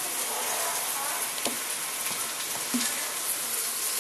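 Sliced mushrooms and onion sizzling in olive oil in a frying pan, a steady hiss, with two light knocks about one and a half and nearly three seconds in.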